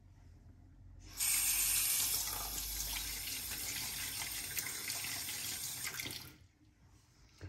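Sink tap running, water splashing into the basin. It starts suddenly about a second in and shuts off about six seconds in.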